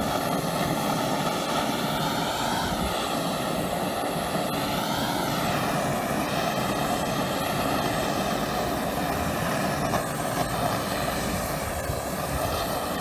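Gas torch burner blowing a steady flame onto an exposed asphalt waterproofing layer around a roof drain, softening and melting the asphalt.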